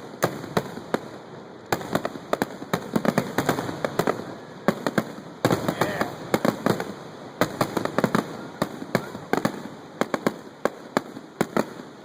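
Display fireworks going off in quick, irregular succession: many sharp bangs and cracks, several a second.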